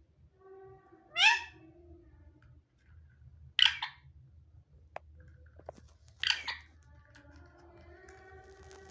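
Pet parrot making three short, sharp sounds, about a second, three and a half and six seconds in, the first with a quick upward sweep: its imitation of a camera shutter click.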